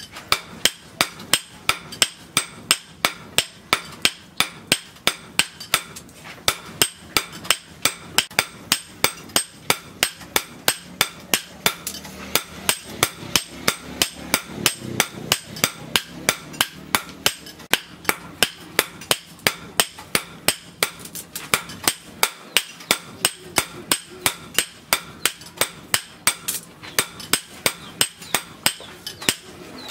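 Hand hammer striking a red-hot steel blade forged from a chainsaw on a steel post anvil, in a steady rhythm of about three blows a second: the blade is being drawn out and shaped.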